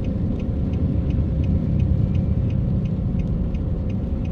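Steady rumble of a car's engine and tyres on a wet road, heard from inside the cabin, with a faint, regular ticking about two or three times a second.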